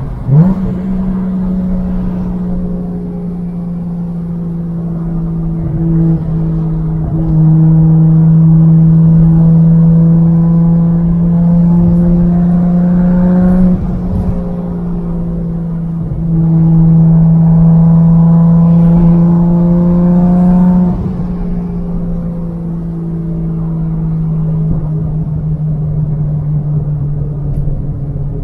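Nissan R33 Skyline GT-R's RB26 twin-turbo straight-six, breathing through a Tomei titanium exhaust, pulling under light throttle on the move. Its engine note climbs slowly and grows louder, then drops in pitch about halfway through and again a few seconds later as it shifts up a gear.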